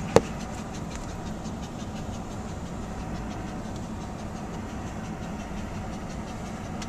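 Steady car road noise from inside a moving car, a low rumble of tyres and engine with faint small ticks throughout. A single sharp knock sounds just after the start.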